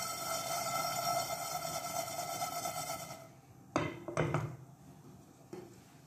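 A steady hum with a high whine runs for about three seconds, then cuts off. After it come a few sharp knocks and clinks of a utensil against the frying pan in which nuts and seeds are being dry-roasted.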